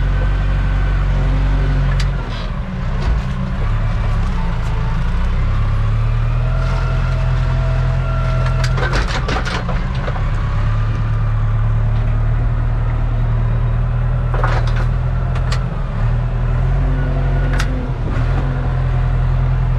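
Tractor diesel engine running in the cab while it works a rear-mounted backhoe digging a trench, its pitch dipping and recovering as the load changes. Several short clanks and knocks come through about halfway and again a little later.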